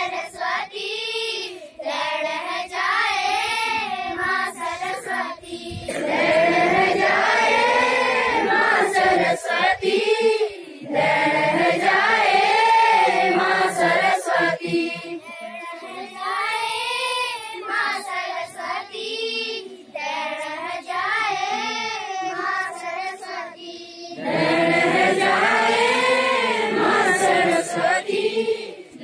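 Schoolchildren's choir, mostly girls, singing a Garhwali prayer to the goddess Saraswati together, phrase by phrase, with some passages louder than others.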